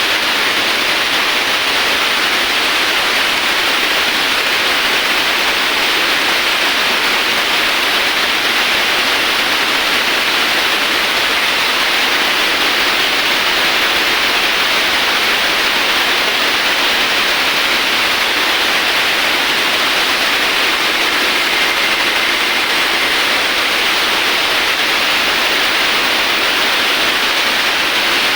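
Steady rushing hiss of coolant spraying onto the work during CNC machining, unbroken and even throughout.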